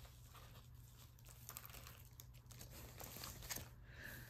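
Faint rustling and crinkling of paper and plastic packaging being handled, over a steady low hum.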